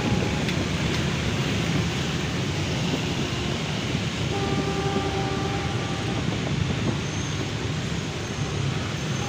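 Train running along the track far off, a steady rumble and hiss, with a horn sounding for about two seconds near the middle.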